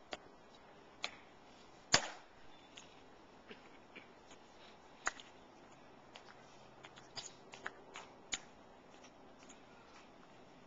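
Sharp, scattered clicks of ceremonial guards' metal-tapped shoe heels striking the stone plaza as they step and march, the loudest about two seconds in and a quicker run of lighter clicks a little past halfway.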